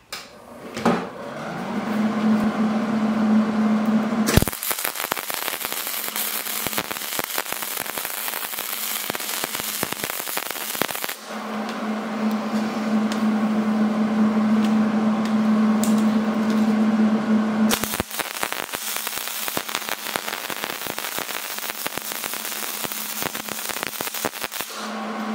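Wire-feed welder arc crackling as a half-inch iron pipe is tack-welded onto a steel plate, in two stretches of about seven seconds each, with a steady hum between them.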